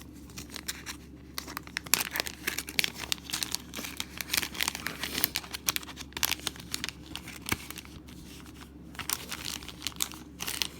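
Board-game packaging being crinkled and torn open by hand: a run of irregular crackles that starts about two seconds in, pauses briefly, and resumes near the end.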